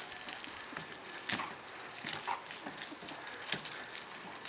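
Water from a garden hose hissing steadily onto a wet wooden deck as a weimaraner bites and lunges at the spray, with three or four short, sharp sounds about a second apart from the dog at play.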